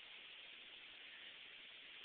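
Near silence: a steady, even hiss of background noise with no distinct sounds.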